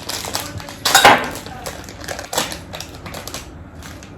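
Kitchen utensils and bowls clinking and clattering in a run of light knocks, the loudest about a second in.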